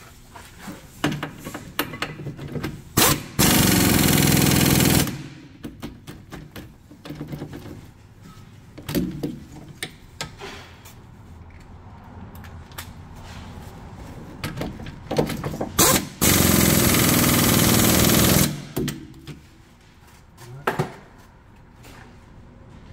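Two bursts of an impact wrench running, each about one and a half to two seconds long, the first about three seconds in and the second about sixteen seconds in. Between them are clicks and clatter of tools and brake parts being handled.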